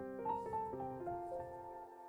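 Soft background piano music: a few notes played in quick succession, left to ring and fading out toward the end.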